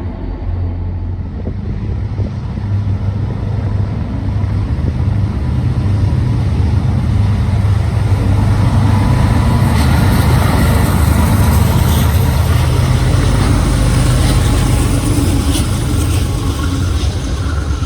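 Diesel train going by: a steady low engine rumble builds to its loudest over the middle of the stretch, with sharp metallic clicks in the second half.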